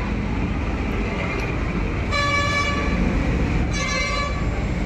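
A vehicle horn honks twice, a longer toot and then a shorter one about a second later, over a steady low rumble of passing traffic.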